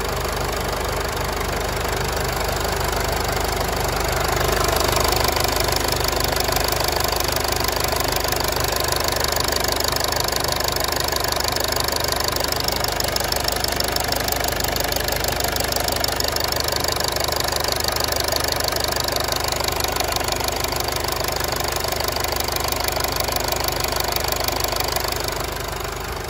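2014 Mercedes-Benz GLK250 BlueTec's 2.1-litre four-cylinder diesel idling steadily, heard with the hood open. It grows louder about four seconds in as the microphone moves close to the injectors and fuel lines, and drops back a little near the end.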